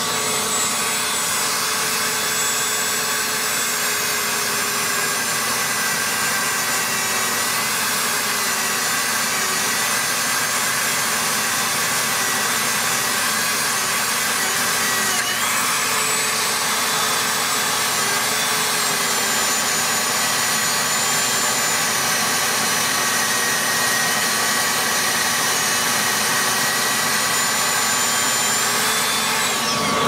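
A metal lathe spinning a hobbed extruder drive gear for a 3D printer while a hand-held rotary tool with a small disc runs against it. Together they make a loud, steady power-tool whine whose pitch wavers slightly.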